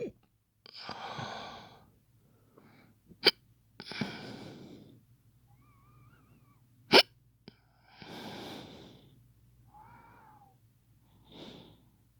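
A man making fake hiccups: two short, sharp hiccup sounds about three and a half seconds apart, with long, breathy breaths between them.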